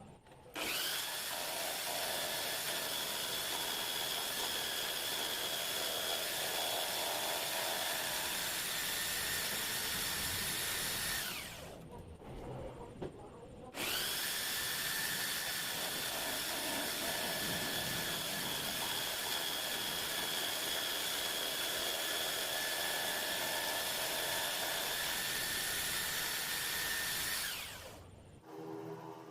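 A high-speed electric power tool running steadily with a high whine. It is switched off about eleven seconds in and winds down, starts again about two seconds later, runs for about fourteen seconds, and winds down again near the end.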